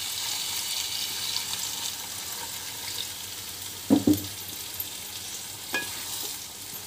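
Chicken masala sizzling in hot oil in a pan, the sizzle dying down after about two and a half seconds as water goes in. A dull knock comes about four seconds in, and a light clink of the ladle comes near six seconds as the gravy is stirred.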